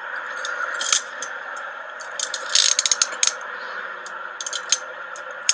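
Metal handcuffs being snapped and worked: sharp metallic clicks and, a little past two seconds in, a quick run of ratcheting clicks from the cuff's ratchet, over a steady car-cabin hum.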